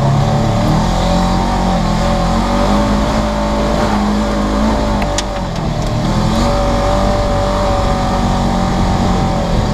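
2015 Polaris RZR 900's twin-cylinder engine running steadily under throttle while driving, heard from inside the cab. About five seconds in there is a sharp tick, and the engine briefly eases off and then picks back up.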